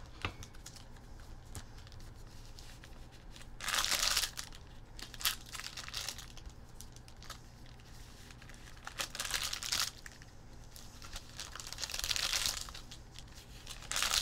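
Wrappers of 2019 Donruss baseball card packs crinkling and tearing as the packs are ripped open by hand, in several short bursts, with a faint steady low hum underneath.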